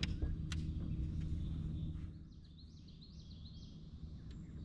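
A songbird sings a quick run of high, looping chirps for about two seconds, midway through, over a steady low hum and rumble. Two sharp clicks come right at the start.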